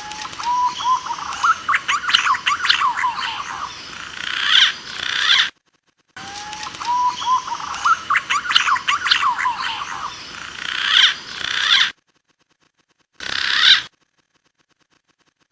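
Recorded green pigeon lure call: whistled, fluting notes that glide up and fall, played as a repeating loop. Each stretch cuts off abruptly to dead silence. A second, identical stretch follows, then a short burst near the end.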